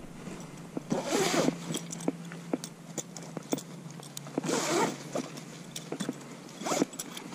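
Three short rasping bursts of nylon fabric being pulled and zipped, with scattered small clicks in between: a carp weigh sling being handled during weighing.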